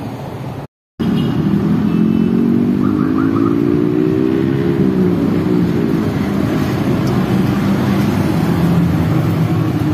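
Street traffic of motorcycles and cars, engines running steadily; one engine's note climbs slowly for a few seconds and then drops back.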